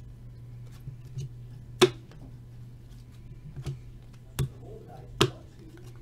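Trading cards being flipped through by hand, their edges giving four sharp snaps and a few softer ticks over a steady low hum.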